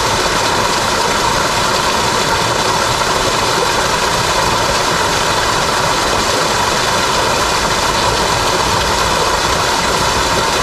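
Steady rush of a small cascade splashing into a brook pool, with water running over rocks in the riffle below.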